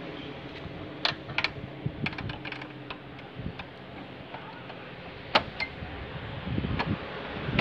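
Scattered light metallic clicks and clinks of a hand wrench and hands on a motorcycle's metal parts, the sharpest click about five seconds in.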